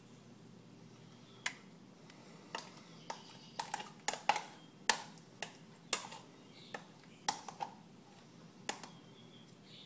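Irregular sharp clicks and taps of kitchen utensils against dishes, about twenty over several seconds.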